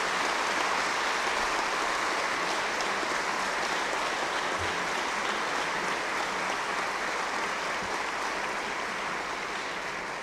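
A large audience applauding steadily: many hands clapping at once, easing off slightly near the end.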